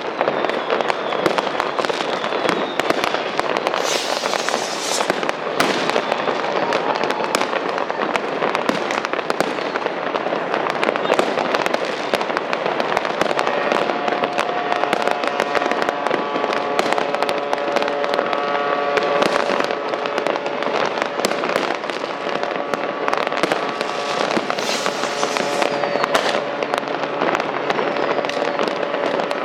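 New Year's Eve fireworks: an unbroken barrage of bangs and crackling from rockets and firecrackers, with a rushing hiss twice, around four seconds in and again near the end. From about halfway, steady held tones at several pitches sound beneath the bangs.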